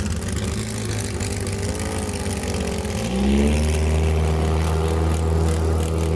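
Boat engine running on the water. Its pitch wavers and dips, then about three seconds in a louder, steady engine note takes over.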